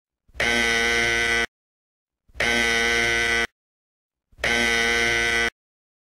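Electronic buzzer in a simulated 8051 washing-machine controller circuit, beeping three times: each beep a steady buzzy tone a little over a second long, about two seconds apart.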